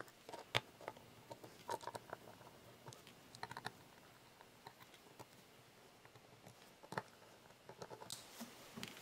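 Faint, scattered small clicks and ticks: a T9 Torx screwdriver turning out the screws on the metal top cover of a Seagate hard drive.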